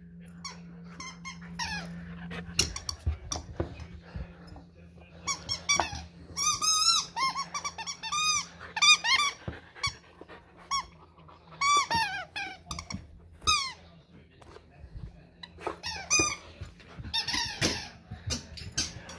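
A Labrador puppy chewing a rubber squeaky toy, squeezing out high squeaks again and again in short runs, with gnawing clicks in between.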